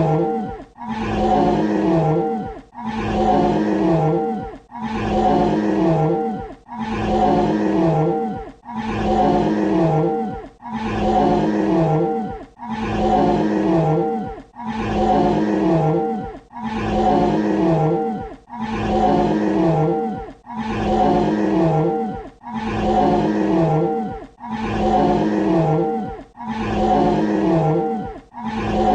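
Dinosaur roar sound effect: the same pitched roar, about two seconds long, looped over and over with a brief dip between repeats.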